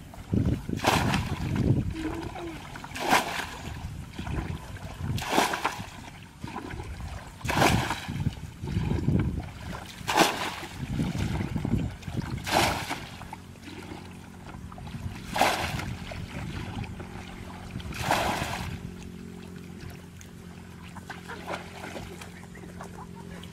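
Muddy water bailed out of a small dammed pocket of flooded rice paddy with a plastic bucket, each load flung out and splashing down about every two and a half seconds, eight times, with sloshing scoops in between. This is the draining of a paddy pool to catch the fish left in it. A faint steady hum runs in the last few seconds.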